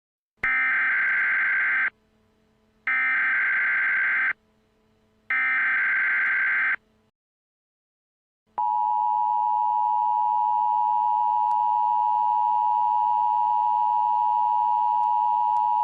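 Emergency Alert System broadcast header: three identical buzzing bursts of SAME data tones, each about a second and a half long. About halfway through, after a short pause, the EAS two-tone attention signal starts and holds as one steady tone.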